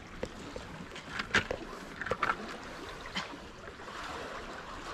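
Low, steady wash of water along the shore, with a few short clicks and rustles from handling a freshly caught striped bass.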